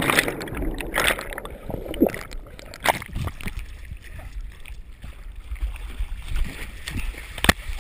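Muddy pond water gurgling and sloshing around an action camera that has just plunged in with a jumper. The rush of the plunge dies away in the first half second, then the water laps quietly, with scattered sharp knocks and splashes as the swimmer surfaces.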